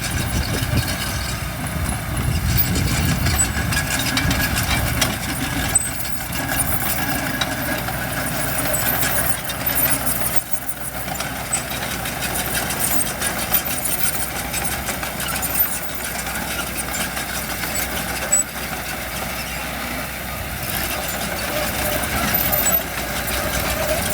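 Diesel engines of heavy earthmoving machinery running steadily, with a heavier low rumble in the first few seconds and scattered clicks and knocks throughout.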